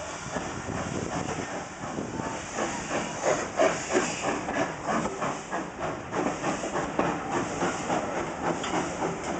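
GWR Manor-class 4-6-0 steam locomotive 7812 moving slowly past, steam hissing, with a run of short irregular beats starting about two and a half seconds in.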